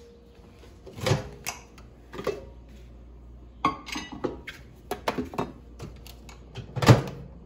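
Ceramic bowl set down on a microwave's glass turntable and a plastic microwave cover placed over it: a series of separate clicks and knocks, then the Hamilton Beach microwave's door shut with the loudest clunk near the end.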